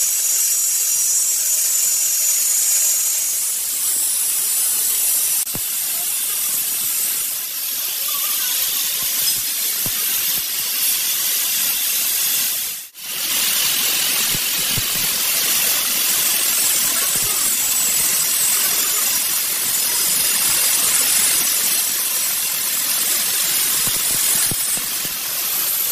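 Stick arc welding: the arc hisses and crackles steadily, breaking off for a moment about halfway through before starting again.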